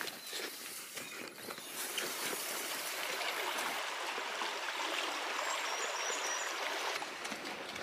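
Shallow river running over stones and a fallen log: a steady rush of flowing water, with a few rustles in the first couple of seconds.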